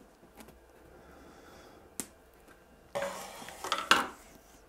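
Scissors snipping into plastic shrink-wrap: a couple of sharp clicks of the blades, then, from about three seconds in, a second or so of the plastic film crinkling and tearing.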